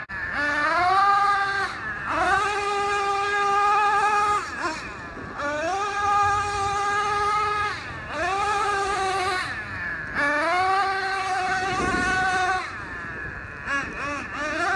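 Traxxas Revo 3.3 RC truck's two-stroke nitro engine revving in repeated throttle bursts: each time the high whine climbs quickly, holds steady for a second or two, then drops away, about five times over.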